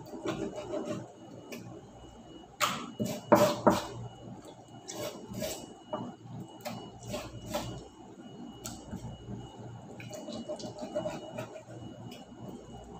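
Dishes and utensils knocking and clinking as they are washed by hand, with a louder burst of clatter about three seconds in and scattered clinks after.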